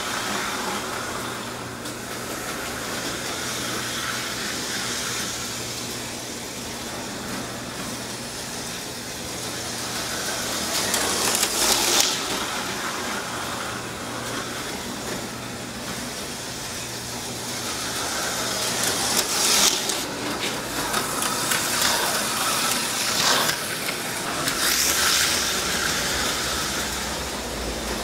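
HO-scale slot cars' small electric motors whirring around the track, the sound swelling each time a car passes, several times, over a steady low hum.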